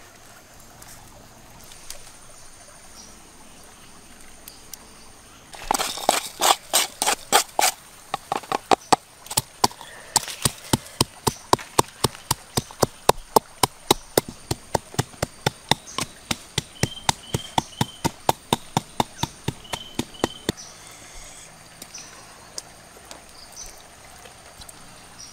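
Wooden pestle pounding in a wooden mortar, crushing garlic and black peppercorns: a long run of sharp, even knocks at about four strokes a second. The knocks start about six seconds in and stop about twenty seconds in.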